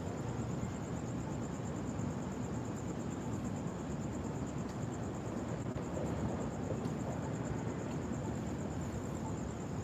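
Steady rushing of floodwater pouring from a broken water main across the street, with a continuous high-pitched trill above it.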